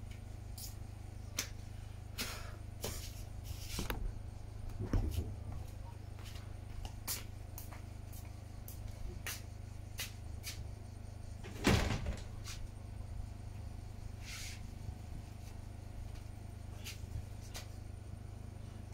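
Scattered light clicks and knocks over a steady low hum, with one louder car-door clunk about twelve seconds in.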